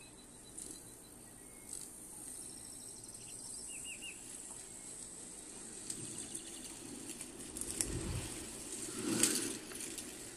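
Forest sound effects from a Dolby Atmos demo trailer: a steady high insect-like hiss with a few short bird chirps about three seconds in. It grows louder toward the end, with a low rumble about eight seconds in and a loud swell just after.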